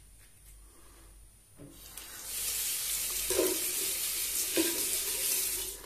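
A Merkur 39C slant-bar safety razor scrapes faintly over lathered stubble. About two seconds in, a bathroom tap starts running hard into the sink, a steady splashing rush as the razor is rinsed under it, stopping just before the end.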